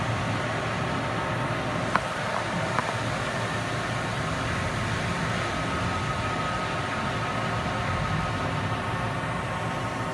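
Mori Seiki NH4000-DCG horizontal machining center running with a steady mechanical hum. Two sharp clicks come about two seconds in and again just under a second later, and a faint steady whine sets in about halfway through.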